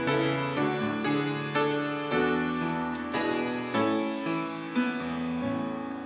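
Piano playing a slow closing passage of struck chords and single notes, each ringing out and fading, after the singing has stopped.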